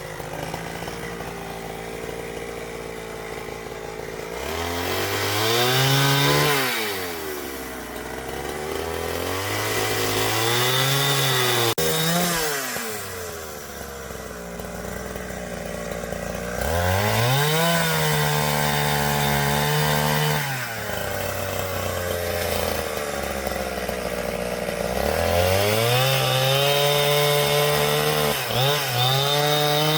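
Two-stroke chainsaw idling, then revved up four times to cut wood, the engine pitch climbing high and holding under load before dropping back to idle in between.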